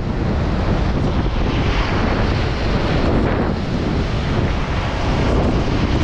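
Strong typhoon wind buffeting the microphone in a steady low rumble, over the wash of rough surf breaking on the shore.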